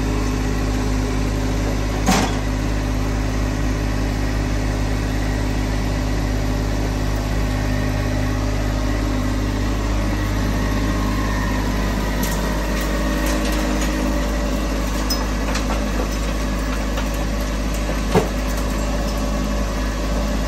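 Engine of a Ditch Witch SK800 stand-on mini track loader running steadily, its tone changing slightly about halfway through. Two sharp knocks come through, one about two seconds in and one near the end.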